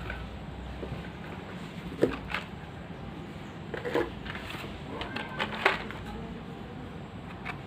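Scattered clicks, taps and light rustles of packaging being handled while unboxing, with a few sharper taps about two, four and six seconds in.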